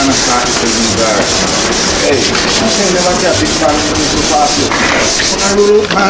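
Body filler on a plastic car bumper being sanded by hand with a sanding pad, in back-and-forth rubbing strokes.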